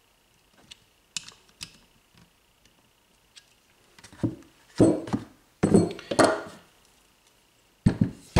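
Light clicks from a hand driver on the starter motor's bolts. Then, from about four seconds in, louder metallic knocks and clatter as the starter is lifted from its holder and set down on the workbench, with a sharp knock near the end.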